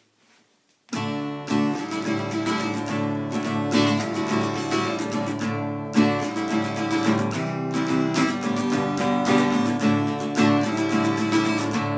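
Acoustic guitar strumming chords in a steady rhythm, starting suddenly about a second in.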